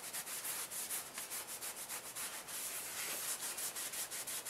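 A rag wetted with denatured alcohol rubbed quickly back and forth over the face of a new brake rotor, wiping off its anti-corrosive coating: a steady run of short scrubbing strokes, several a second.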